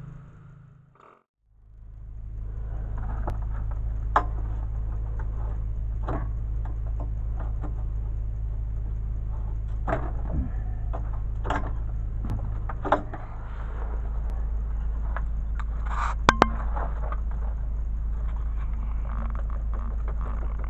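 A motor runs with a steady low drone, dropping out for a moment about a second in. Over it come scattered scrapes, knocks and jangles from a worker handling a termiticide spray hose and wand on the dirt of a crawl space, with a few sharp knocks standing out.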